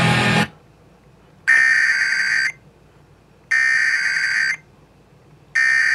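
Emergency Alert System SAME header: harsh digital data tones sent in bursts about a second long, each followed by about a second of quiet. This is the encoded header that opens an EAS alert. The music before it cuts off about half a second in.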